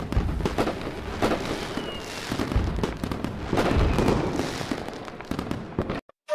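Fireworks sound effect: dense crackling with several louder bangs and a faint falling whistle about two seconds in, cutting off suddenly near the end.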